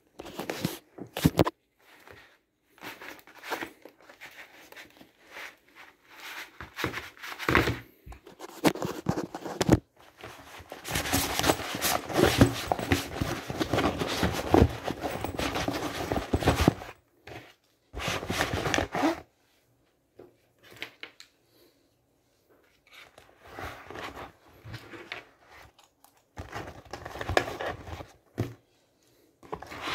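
Rustling, crinkling and knocking as items are handled and packed into a laptop trolley bag, in irregular bursts with a long dense stretch of rustling in the middle, broken by several sudden silent gaps.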